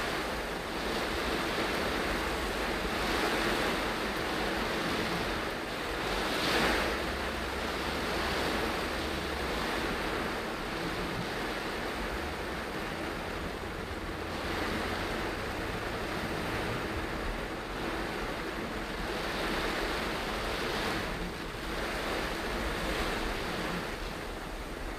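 Heavy rain falling on a moving car's roof and windscreen, mixed with tyre hiss on the wet road, heard from inside the car; a steady wash of noise that swells and eases every few seconds.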